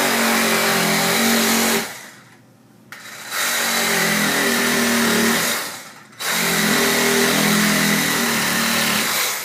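Low-power cordless reciprocating saw running in three bursts of two to three seconds each, its blade cutting into the rubber of OPRs on a tire.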